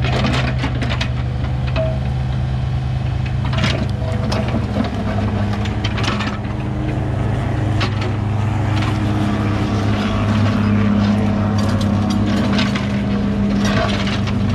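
Komatsu PC15 mini excavator's diesel engine running steadily under work, with scattered knocks and clanks throughout, more of them near the end.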